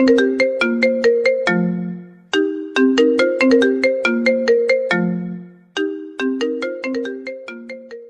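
Mobile phone ringtone melody: a short tune of quick notes, each starting sharply and fading, repeating about every three and a half seconds, with each phrase ending on a held low note.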